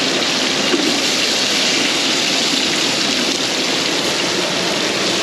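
Steady rushing of a small waterfall and stream pouring over rocks.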